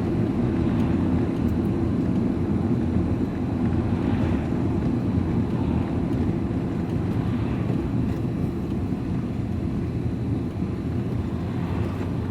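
Steady low rumble of engine and road noise inside a van's cab while it drives along.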